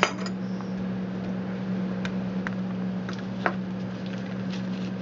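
Steady low hum of room equipment with a few light, sharp clicks of plastic petri dishes being handled, the sharpest right at the start and another about three and a half seconds in.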